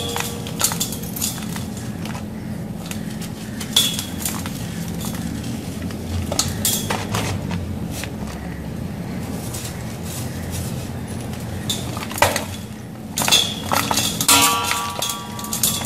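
Dry gritty sand blocks crumbling in the hands, with grit and chunks falling into a glass bowl. Sharp clinks sound against the glass, a few leaving a short ring, and they come thicker near the end.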